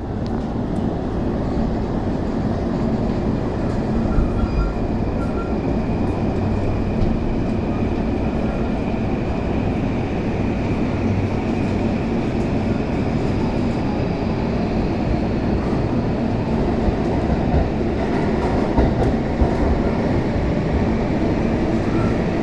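Onboard running sound of a JR E233-1000 series electric train pulling out of a station: a steady rumble of wheels on rail, with a high inverter and traction-motor whine that comes in a few seconds in and fades after about fifteen seconds.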